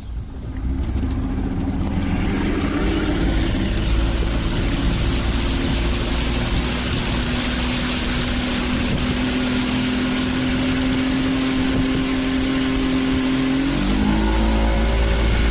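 Small boat's outboard motor running under way, its steady note over a rush of wind and water; near the end the engine note drops and changes as the throttle is eased.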